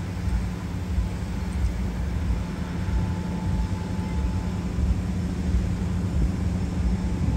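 A boat's engine running steadily, a low drone with a constant hum, heard from on board.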